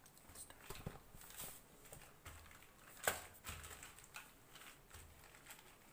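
Faint rustling and light clicks of a wooden rolling pin rolling cashew dough flat over a polythene sheet, with one sharper click about three seconds in.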